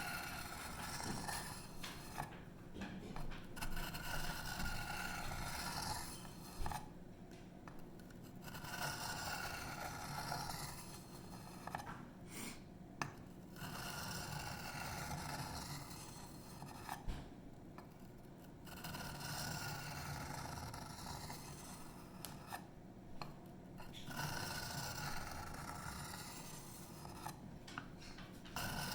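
Emerson Mini A100's 154CM chisel-ground blade being swiped along an extra fine diamond sharpening stone: repeated scraping strokes in runs of a few seconds with short pauses between them, raising a burr on the edge.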